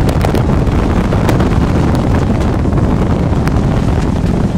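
Heavy wind rumble buffeting the microphone of a camera in a moving vehicle, mixed with the vehicle's road noise, with a few faint ticks.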